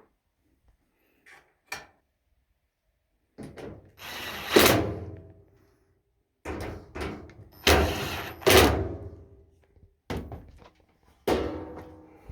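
A series of thuds and knocks on the Samsung dryer's body, in three clusters. Each loud strike is followed by a short ringing tone.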